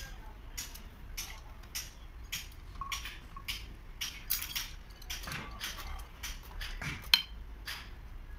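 Light metallic clicks, about two a second, from a long-handled wrench being worked on a seized truck diesel engine.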